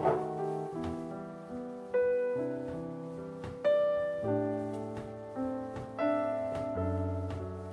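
Background piano music: single notes and small chords struck every half second to a second, each dying away.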